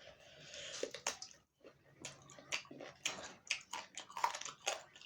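Close-miked mouth sounds of a person eating: a wet, squishy hiss for the first second or so, then rapid wet chewing smacks and clicks, several a second.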